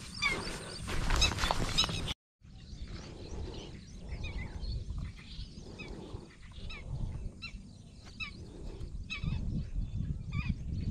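Small birds chirping repeatedly over a steady low rumble of wind on the microphone, with the sound cutting out for a moment about two seconds in.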